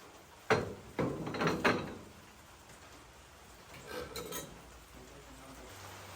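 Several sharp knocks and clatters of hard objects being handled, loudest between half a second and two seconds in, then a softer rattle about four seconds in.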